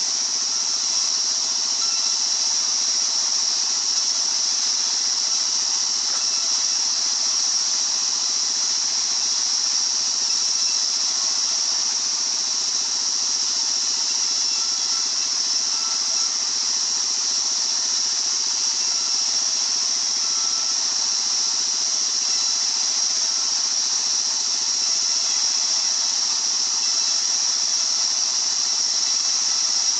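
Circular sawmill running steadily: a constant high-pitched hiss with a faint squeal, unbroken throughout.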